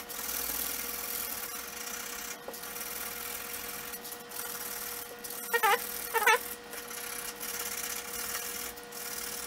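Fine sandpaper rubbing by hand on the copper commutator of a small Federal Model 17 lightbar motor's armature, cleaning rust and dirt from the plates. Two short squeaks stand out a little past halfway.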